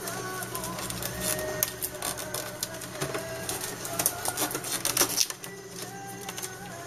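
Plastic clicks and clacks from an HP inkjet all-in-one printer's housing as it is handled and its top lifted, over a steady low hum. The clicks come irregularly and are loudest about four to five seconds in.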